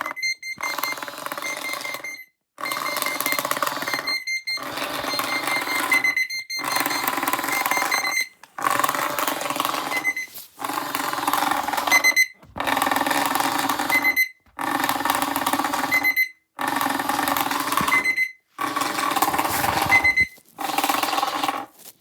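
An alarm sounding in repeated long blasts, one about every two seconds with a short silent gap between, about eleven in all; it stops at the end.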